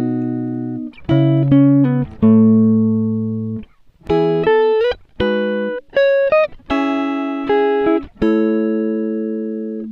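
Background music of plucked guitar notes played one after another, each ringing and fading, several sliding up in pitch.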